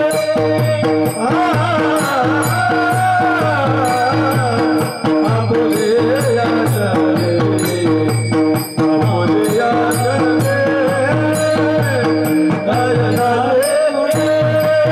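Warkari devotional bhajan: men's voices sing a melody to fast, even clashes of small taal hand cymbals, over a steady harmonium drone and a low drum beat.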